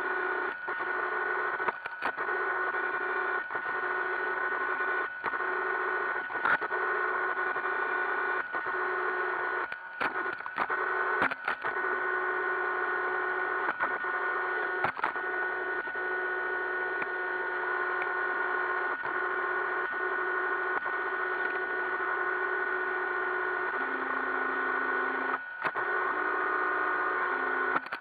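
iRobot Roomba 560 robot vacuum running, its vacuum and brush motors giving a steady hum with a high whine, heard from a camera riding on the robot. Short clicks and brief dips in the noise come every few seconds.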